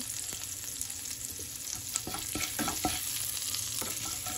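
Chopped green chillies and cumin seeds sizzling in hot oil in a kadhai, with a run of short scrapes and clicks from about two seconds in as a spatula stirs them.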